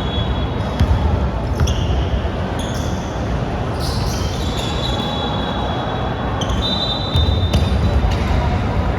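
Basketball game on an indoor court: a ball bouncing, with several high-pitched squeaks about a second long and a steady rumble of gym noise.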